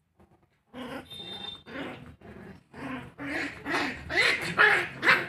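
Puppies growling and yipping as they play-fight, in a string of short calls that start about a second in and grow louder toward the end.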